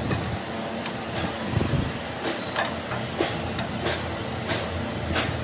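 Repeated hammer blows on metal, about seven sharp strikes at a steady pace, over a steady low workshop rumble.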